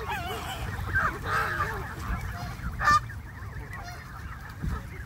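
A flock of Canada geese honking and calling over one another, with one loud, sharp honk about three seconds in.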